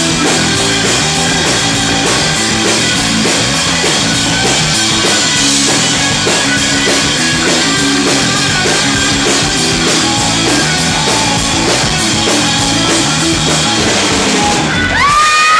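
Rock band playing live: electric guitar, bass guitar and drum kit in a loud, driving instrumental passage, heard through the PA. Near the end a high note rises and is held.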